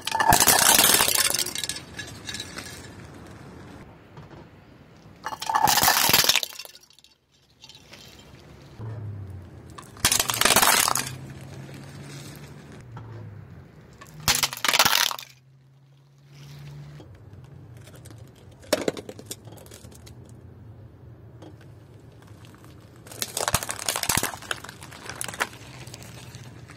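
Car tyre rolling over and crushing bowls, plates and plastic cups: a series of loud cracking, crunching breaks, about five of them a few seconds apart, the last a longer crackle. A low steady hum lies underneath.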